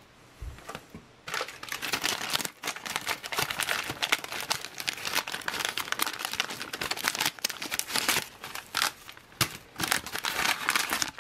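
Shiny plastic-laminate wrapper of a C-ration accessory packet crinkling and rustling irregularly as it is pulled and torn open by hand. It starts about a second in.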